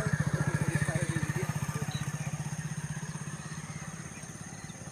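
An engine running with a fast, even low pulse, loudest at the start and growing steadily fainter over the last few seconds.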